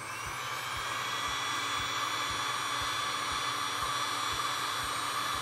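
Electric heat gun running, its fan blowing hot air steadily to shrink heat-shrink tubing over a soldered wire splice. The sound rises over about the first second, then holds steady with a faint whine.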